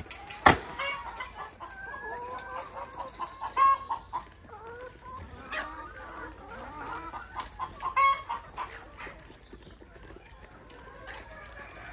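A thrown chunk of banana trunk lands with one sharp thud about half a second in, followed by a flock of laying hens clucking and calling, with a few rattling cackles.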